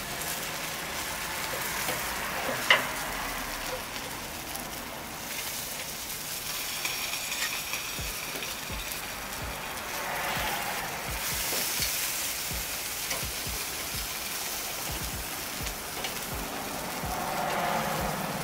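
Chicken leg quarters sizzling over hot charcoal on a kettle grill while they are turned with metal tongs, with a sharp click about three seconds in.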